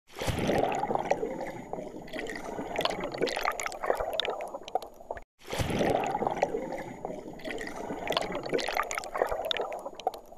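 Bubbling, trickling water with many small pops and gurgles. The same stretch of a few seconds plays twice, with a short break just past halfway.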